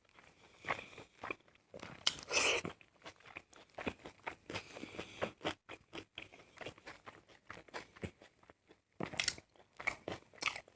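Close-miked eating sounds: chewing and crunching food as many short, irregular clicks and crackles, with a louder crunch about two seconds in.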